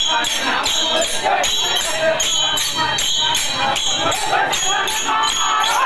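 Festival procession music: a fast, steady metallic jingling beat, about three to four strokes a second, with voices singing and a crowd.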